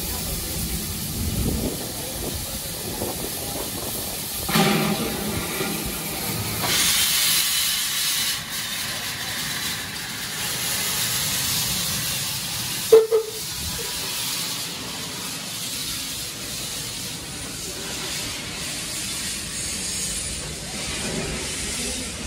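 Small tank steam locomotive moving off and passing at low speed, with a steady hiss of steam venting from its cylinder drain cocks that swells in the middle. A single short, loud sound about halfway through.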